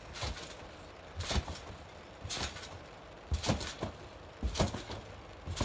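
Trampoline mat and springs thumping and creaking under two people bouncing, about one bounce a second in a steady rhythm.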